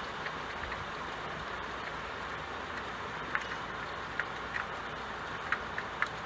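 Steady rain falling, an even hiss with a few sharper ticks of single drops through the middle and near the end.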